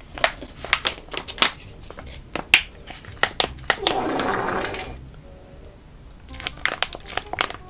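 Large plastic pouch of spicy sauce crinkling and crackling in the hands as it is squeezed, with a wet, thicker spurt of sauce from its spout about four seconds in.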